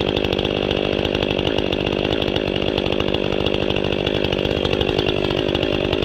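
Stihl 500i two-stroke chainsaw running steadily at a constant speed through its opened-up, baffle-removed muffler.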